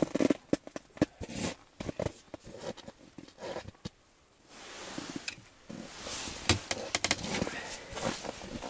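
Scattered small clicks, knocks and rustles of ice-fishing gear being handled on snow and ice, with a short lull about four seconds in and then steadier rustling with more clicks.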